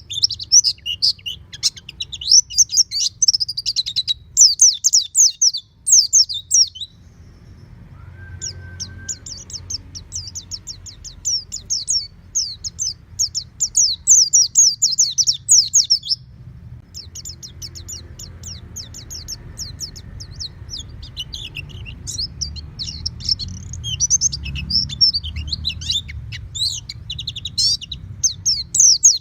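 White-eye (pleci) song: rapid, high twittering chirps in long runs, broken by short pauses about seven and sixteen seconds in, over a low steady rumble.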